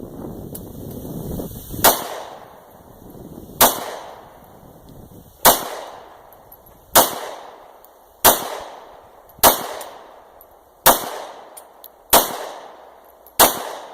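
Gunshots at a shooting range: nine shots fired one after another at a steady pace, about one every second and a half, each with a short echoing tail.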